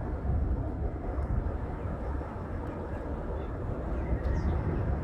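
Outdoor ambience: a steady low rumbling noise, with a few faint short bird chirps over it.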